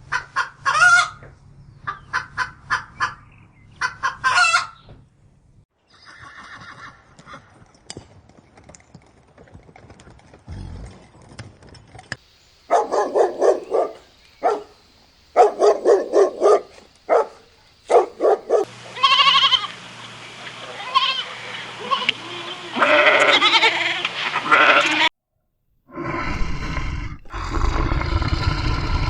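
Farm animal calls, one short clip after another, with goats among them. Each clip brings a different set of repeated calls, and some end with a sudden cut.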